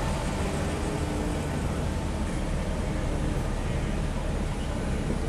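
Steady low rumble and hiss of a car's engine and road noise, heard from inside the moving car.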